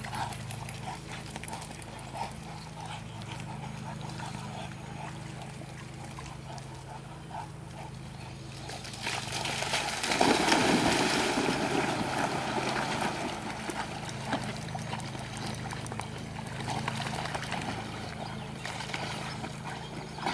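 Dogs leaping off the bank into a pond: a loud splash about halfway through, then splashing and sloshing water as they swim, over a steady low hum.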